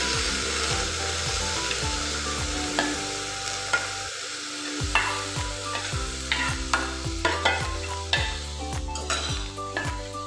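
A steel spoon scraping and clinking against a steel bowl as drained, soaked mixed lentils are scooped into a stainless steel pressure cooker. Irregular scrapes and clicks come over a hissy rush of wet grains sliding and falling in.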